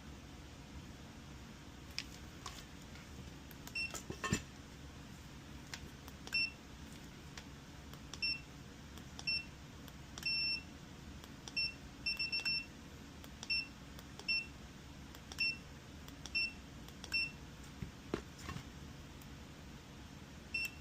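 Digital multimeter's continuity beeper sounding in short, high beeps at uneven intervals, one held a little longer and a quick run of several, each beep marking a closed circuit as the probes touch points on a treadmill control board. There are a few faint clicks of the probe tips.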